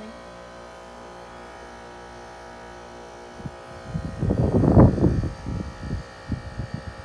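Carrier heat pump outdoor unit humming steadily near the end of its defrost cycle. About four seconds in, a loud rushing whoosh swells for about a second and a half, then trails off in a few short low bumps.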